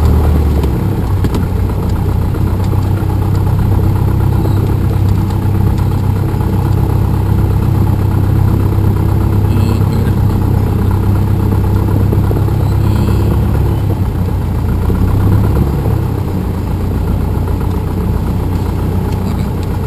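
Cessna 172M's four-cylinder Lycoming O-320 engine and propeller running at low taxi power, a steady low drone heard from inside the cabin, easing off slightly near the end.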